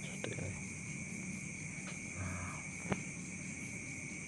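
Steady high-pitched background drone with a low hum under it, and a few faint clicks, the sharpest about three seconds in.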